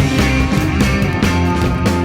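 Rock music with electric guitar and a steady beat; no singing.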